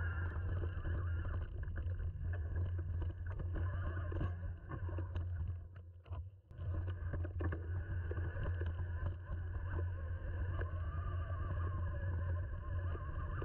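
Mountain bike riding over a dirt forest trail, heard from a bike-mounted camera: a steady low rumble with rattles and knocks over bumps, and a whine that wavers in pitch. The sound drops away briefly about six seconds in, then picks up again.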